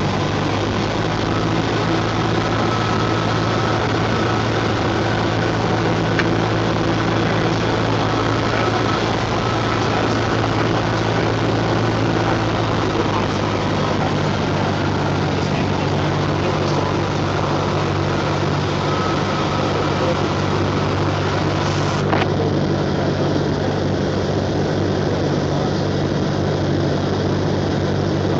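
Cessna 172's piston engine and propeller droning steadily inside the cabin, mixed with wind noise. The engine note shifts about halfway through, and there is a single click near the end.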